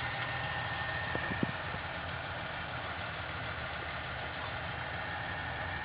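Vehicle engine idling steadily: a low rumble under a hiss, with a faint high whine. A couple of light clicks come about a second and a half in.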